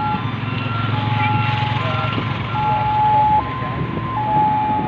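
Heavy construction machinery's diesel engine running, with an electronic warning jingle over it: clean beeping tones stepping between two or three pitches in a simple repeating tune.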